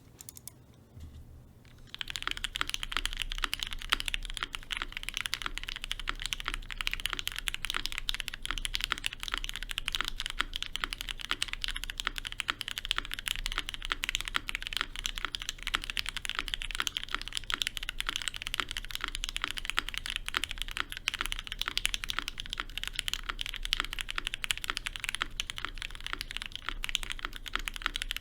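Fast continuous typing on a GMMK Pro mechanical keyboard with Krytox-lubed Cherry Hyperglide switches and ePBT ABS keycaps, a dense stream of key clacks. A few scattered key presses come first, then the steady typing starts about two seconds in.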